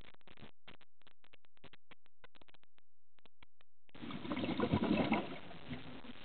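Scuba diver's exhaled bubbles rushing up past the camera underwater, a burst of about a second and a half starting about four seconds in, over faint underwater noise that cuts in and out.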